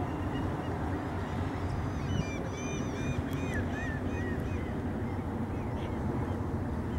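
Swan cygnets peeping: a run of short, high chirps starting about two seconds in and lasting a couple of seconds, over a steady low rushing noise.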